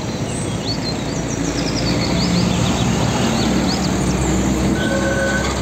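Car-carrier truck engine running as it drives along the road, with steady road traffic noise and short bird chirps over it. A steady high tone comes in near the end.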